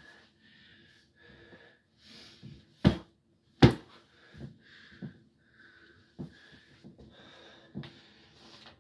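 A person breathing hard in quick, wheezy breaths, with two sharp thumps about three seconds in as a body and a stuffed doll are slammed down on a bed mattress.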